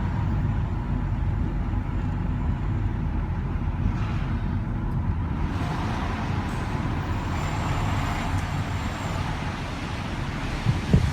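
Steady low rumble of a moving road vehicle.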